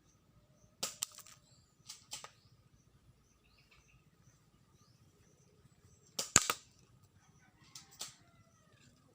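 Spring airsoft pistols firing: sharp pops coming in pairs, with the loudest cluster about six seconds in.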